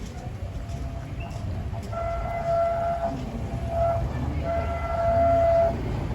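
Narrow-gauge steam locomotive whistle sounding three blasts, a longer one, a short one and a longer one, on one steady pitch over the low rumble of the train.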